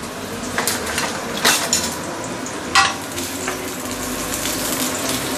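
Sliced ginger sizzling in oil in a stainless steel wok, the hiss slowly growing louder as the oil heats. A wooden spatula stirring the ginger knocks against the wok a few times.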